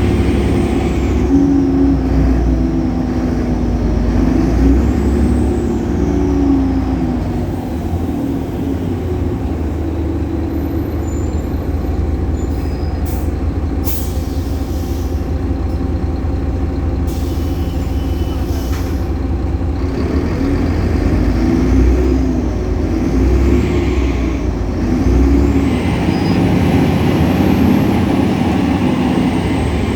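Solaris Urbino 18 bus's DAF Paccar PR265 diesel engine and ZF Ecolife six-speed automatic pulling up and dropping back through gear changes, twice: in the first several seconds and again from about twenty seconds in. A high whine rises and falls with engine speed, the loud belt noise of this engine. In between the engine runs lower and steadier, with a short air hiss near the middle.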